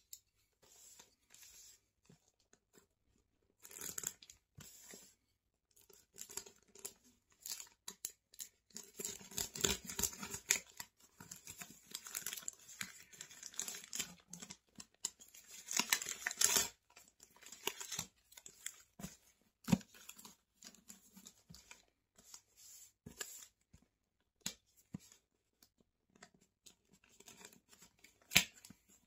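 Packaging being torn open and crinkled by hand, in irregular scratchy bursts with scattered clicks, busiest in the middle stretch.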